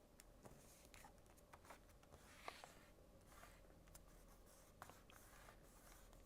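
Faint rustling and crinkling of a sheet of origami paper being folded and creased by hand, with small scattered ticks and one slightly louder crinkle about two and a half seconds in.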